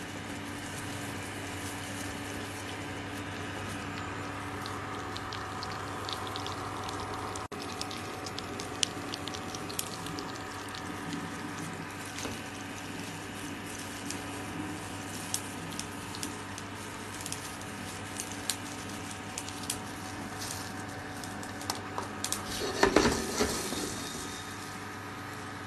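Steady kitchen background hum, with light clicks and rustles as gloved hands handle pieces of steamed pitha on a plate. A brief louder clatter comes just before the end.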